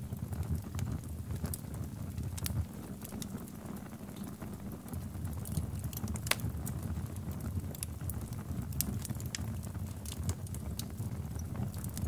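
Burning plastic of a melted mini fan, crackling with scattered sharp pops over a steady low rumble.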